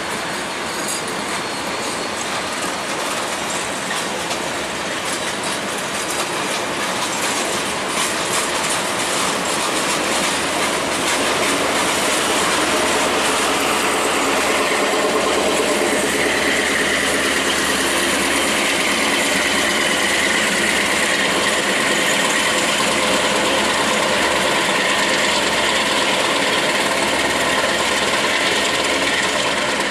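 Railway wagons of a passing freight and engineering train rolling on curving yard track, with a steady wheel-on-rail rumble and clacking over the rail joints. It grows louder from about eleven seconds in, and a high wheel squeal rises over it around the middle.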